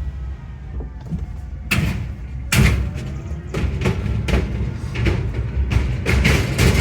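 Car tyres thumping over the deck of a bridge: a string of irregular knocks, several a second, over a steady low rumble, starting about two seconds in.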